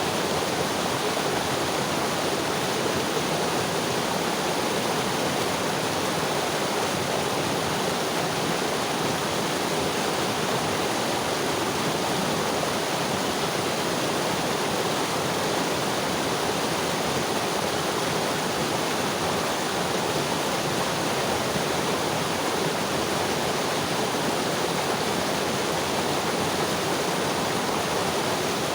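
Mountain river flowing over rocks: a steady, even rushing of water that doesn't change.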